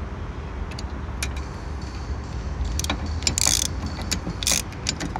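Hand ratchet clicking in several short bursts, with single sharp clicks between them, while tightening the screws that hold the new fuel injectors; a low steady rumble lies underneath.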